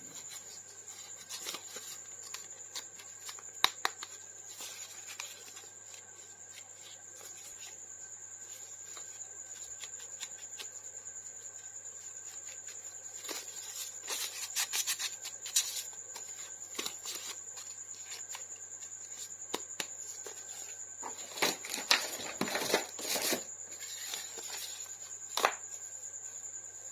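Scattered clicks and crinkly rustles of plastic toy packaging and figure parts being handled, louder in two clusters about halfway through and near the end, over a steady high-pitched whine and a low hum.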